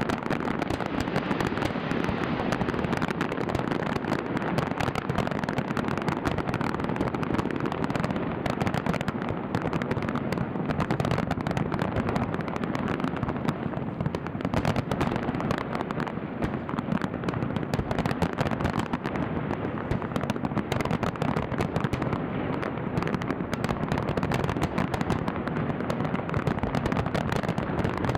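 Fireworks display going off in a dense, continuous barrage: many overlapping bangs and crackles with no pause.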